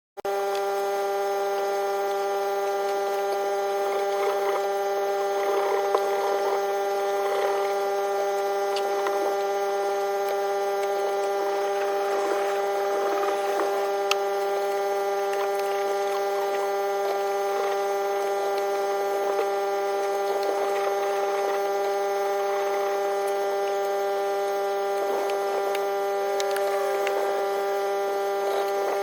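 A steady electric hum at one constant pitch, with faint, irregular scratchy sounds over it.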